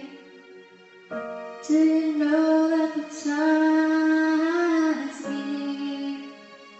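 A woman singing long held notes without words over a soft, steady musical backing, the music fading down near the end.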